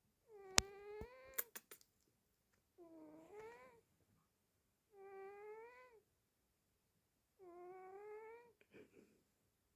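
Sleeping cat snoring: four drawn-out, whining snores, one with each breath, about two seconds apart. A few sharp clicks come near the first.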